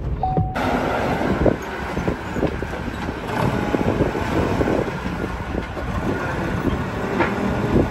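Propane-fuelled Cat forklift running and moving, its engine noise mixed with frequent short knocks and rattles.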